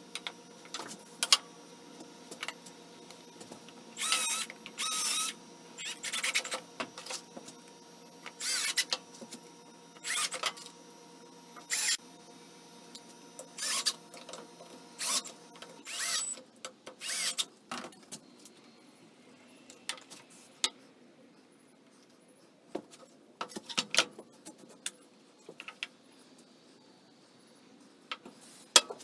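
Cordless drill driving screws into a wooden box in short bursts, about ten of them under a second each, the motor whine wavering as each screw goes in. After that come scattered clicks and knocks of wood pieces being handled.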